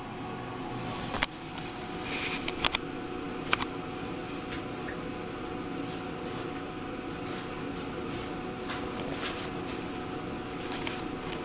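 A steady hum runs throughout, with scattered light clicks and rustles, a cluster of them in the first few seconds, from puppies moving about and playing on a tiled floor and rug.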